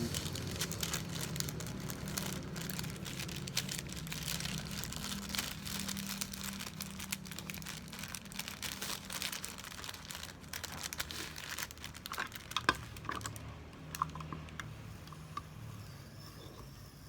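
Packaging crinkling and rustling as it is handled, dense at first and thinning to scattered taps and clicks in the last few seconds, with one sharp click about two-thirds of the way through. A faint steady low hum runs underneath.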